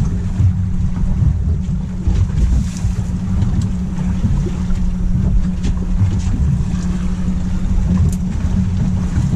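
Wind buffeting the microphone in a steady low rumble, with sea water sloshing against a small boat's hull.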